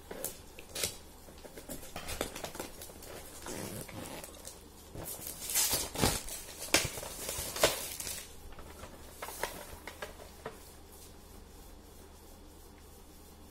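Irregular light clicks, taps and rustling, busiest about five to eight seconds in, then fading to faint steady background for the last few seconds.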